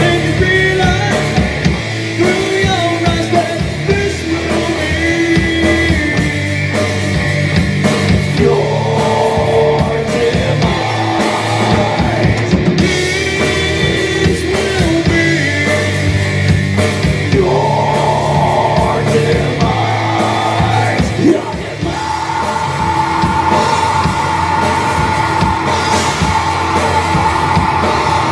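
Live rock band playing a song: electric guitar, bass guitar and drum kit, with a singer's voice over them.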